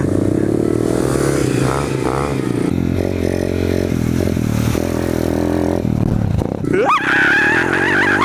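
Dirt bike engine running under changing throttle as it is ridden along a track. The engine note drops off briefly about six seconds in, then climbs again near the end.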